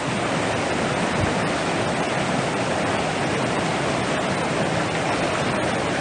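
Mountain stream rushing over boulders: a steady, even rush of water.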